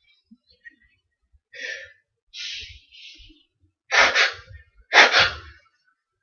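A man's sneezing fit: a few sharp, gasping breaths in, then two loud sneezes about a second apart near the end.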